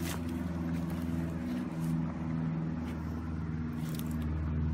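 A steady low droning hum holding several pitches, with a few faint scrapes.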